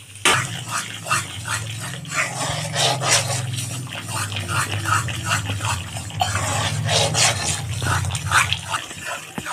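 Slotted metal spoon stirring and scraping wheat flour as it roasts in ghee in a kadhai: a run of short, irregular scrapes. A steady low hum runs underneath and stops about a second before the end.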